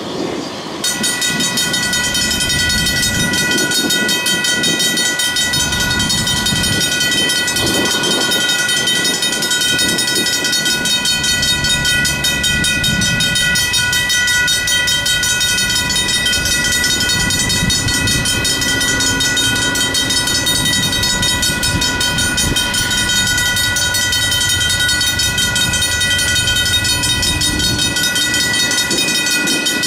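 Griswold mechanical crossing bells on an activated railroad crossing signal, ringing rapidly and continuously from about a second in, a steady metallic clanging.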